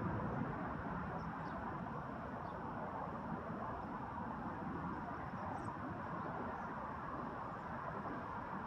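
Steady outdoor background rush with a few faint, brief high chirps now and then.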